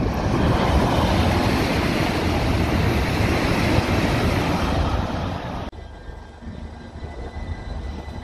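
Class 395 high-speed electric train passing at speed, a loud steady rush of wheel and air noise that cuts off suddenly about six seconds in. After that, a quieter Class 357 electric train at the platform, with a faint steady whine.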